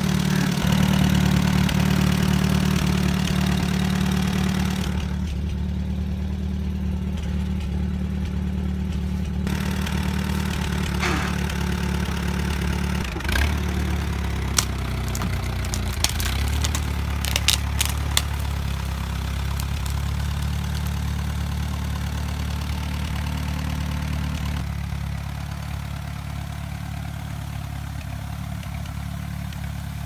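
1942 Allis-Chalmers Model C tractor's four-cylinder engine running steadily while towing a dead tree on a chain, with a few sharp clicks and knocks about halfway through.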